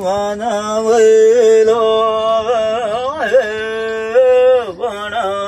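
A song playing: one voice sings a long, wavering, ornamented melody over a steady drone note, with no break.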